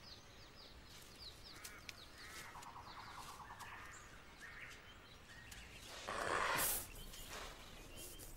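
Night forest ambience: a quick series of short, high chirping calls, then warbling bird calls, and about six seconds in a brief noisy rustle, the loudest sound.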